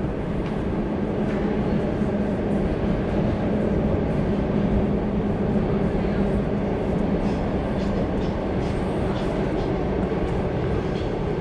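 A moving vehicle's steady, loud rumble, even throughout, with a few faint ticks over it.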